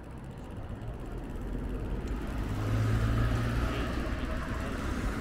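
A car driving past on the street: engine hum and tyre noise grow louder to a peak about three seconds in, then ease off a little.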